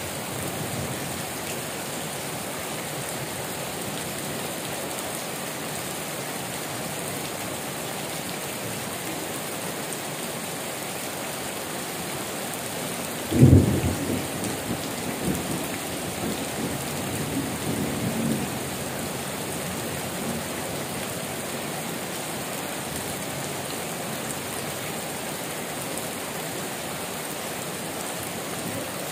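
Heavy rain pouring steadily. About halfway through, a sudden loud thunderclap breaks out and rolls on as rumbling thunder for several seconds.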